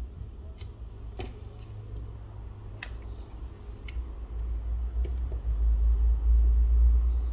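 Scattered sharp clicks and taps of small tools and parts being handled during phone disassembly, with a couple of brief high pings. A low rumble swells in the second half.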